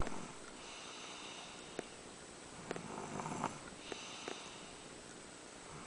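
A young child snoring softly in his sleep: slow, noisy breaths with a faint rattle about three seconds in.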